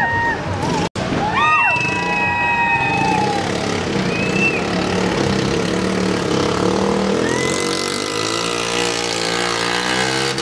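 Small scooter engine running and revving during wheelie stunts, its pitch wavering up and down from about eight seconds in. Shrill tones that slide in and out sound over it now and then, and there is a brief dropout about a second in.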